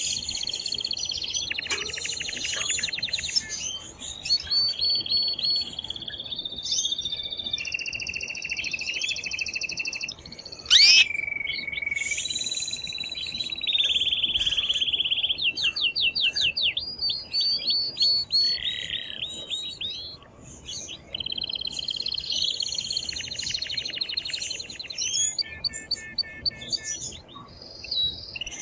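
Excited male canary singing very loudly: a long, continuous song of rapid trills and rolling phrases, changing every few seconds, with one sharp rising note about eleven seconds in. It is the breeding song a male sings to stimulate a female to mate.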